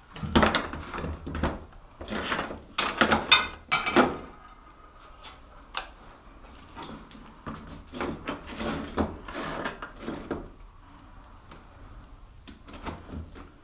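Metal bike parts and tools being handled on a workbench: bursts of clattering, scraping and knocking in the first four seconds, again in the middle, and briefly near the end.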